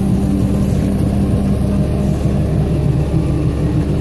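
Steady running hum of a plow truck with a Fisher Poly-Caster 2.5-yard salt spreader working in its bed, the spreader's conveyor turning.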